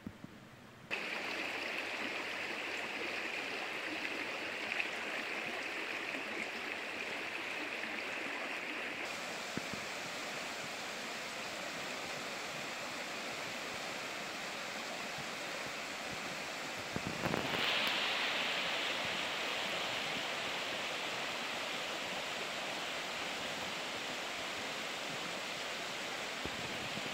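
Oslava river water rushing steadily, an even noise without tones. It starts abruptly about a second in and becomes louder about two-thirds of the way through.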